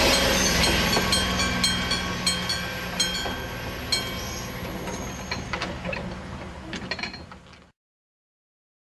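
A train rolling away from a railway level crossing, its rumble fading, while the crossing's electric bell (denshō) gong strikes repeatedly, first about every two-thirds of a second and then more sparsely. The sound cuts off abruptly near the end.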